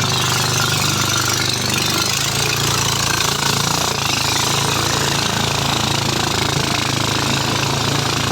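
A motor engine running steadily at a constant speed, loud and even, with a deeper low rumble joining about two seconds in.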